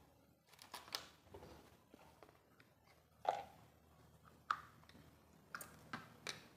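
Hands handling an electric fan motor's capacitor and wiring: a few scattered clicks and knocks, the sharpest about three and four and a half seconds in, with several more near the end.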